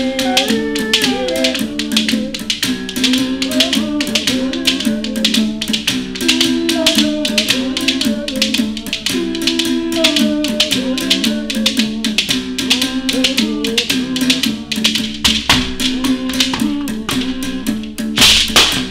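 Uhadi, a Xhosa calabash-resonated musical bow, struck with a stick, with its low tones alternating between two pitches and shifting overtones above them. It is accompanied by a net-covered gourd rattle shaken in a fast, steady rhythm, with one louder accent near the end.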